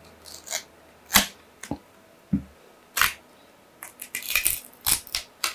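Plastic back cover of a smartphone being pried and peeled off its frame with an opening pick: a few separate sharp clicks, then a quicker run of clicks and crackles near the end as the heated adhesive lets go.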